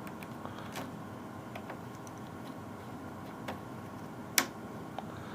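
Scattered sharp clicks of an oscilloscope's front-panel buttons and knobs being worked, one much louder click about four and a half seconds in, over a steady low hum.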